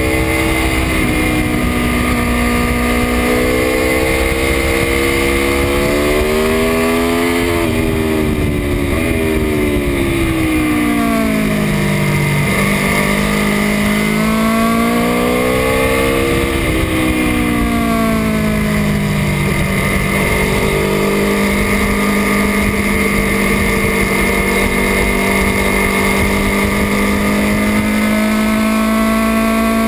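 Aprilia Tuono V4 1100 RR's V4 engine heard onboard, rising and falling in pitch several times as the bike accelerates and slows, then running at a fairly steady pitch for the last third.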